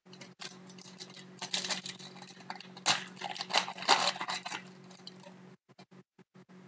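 A trading-card pack wrapper crinkling as it is torn open by hand, then cards rustling as they are fanned through; loudest in the middle and thinning out near the end.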